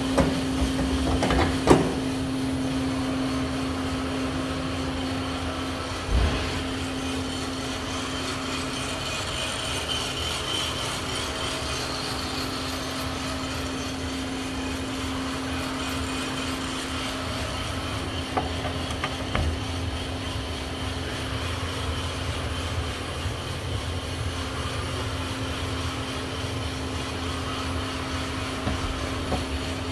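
5 kg coffee roaster running, a steady motor hum over a low mechanical rumble and scraping noise, with a couple of sharp knocks in the first several seconds.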